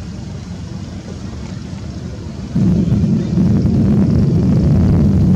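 Wind buffeting the microphone: a low rumble that turns much louder about two and a half seconds in.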